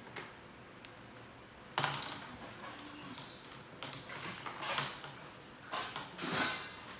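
A plastic laundry basket knocking against and scraping across a tiled floor as two young macaques shove and drag it, with a sharp knock about two seconds in followed by several clattering scrapes.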